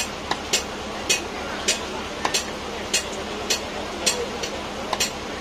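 A large knife chopping a surmai (seer fish) into steaks on a wooden log block: a sharp chop roughly every half second, about ten in all, over background voices.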